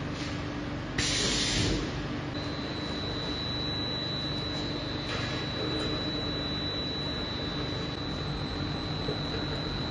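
Steady machinery hum of a glass laminating production line, with a short burst of hiss about a second in and a thin high whine that starts a couple of seconds in and holds steady.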